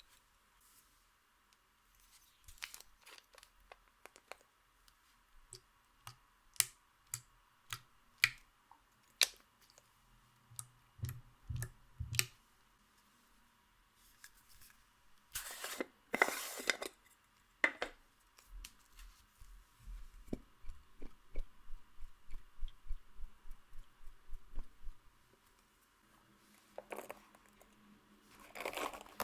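Close-up handling sounds from makeup being worked into clear slime. A series of sharp clicks and snaps comes first, then two louder crunching scrapes about halfway through, then a run of quick soft taps.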